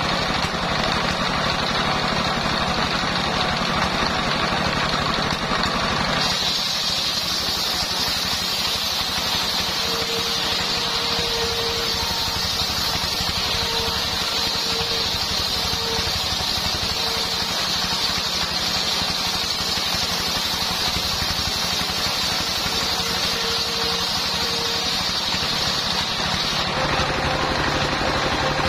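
Stationary single-cylinder diesel engine running a homemade belt-driven circular saw. About six seconds in, the blade starts cutting along a coconut trunk, adding a steady high sawing noise over the engine with a faint on-and-off whine. Near the end the sawing stops and the engine runs alone again.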